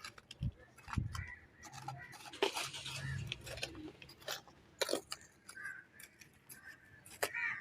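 Irregular sharp clicks and clinks of hard objects being handled, with a faint low hum about two to three and a half seconds in.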